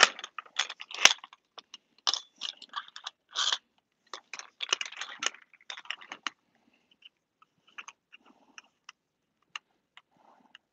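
Plastic shells and padded straps of a JAS knee brace being handled and adjusted: a run of short rustles, scrapes and rasps with a sharp plastic click about a second in, thinning out to a few scattered small clicks in the second half.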